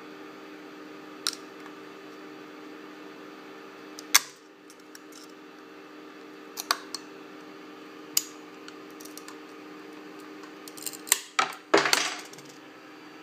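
Utility knife blade working a 3D-printed plastic part off a glass build plate: scattered sharp clicks of steel on glass, the loudest about four seconds in, then a quick run of clicks and a short scrape near the end as the part comes free and the blade slides over the glass. A steady low hum runs underneath.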